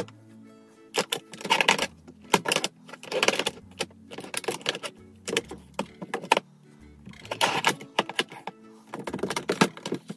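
Makeup palettes being handled and shuffled in a drawer: repeated clicks, taps and clattering of compacts knocking and sliding against each other. Soft background music with a bass line runs underneath.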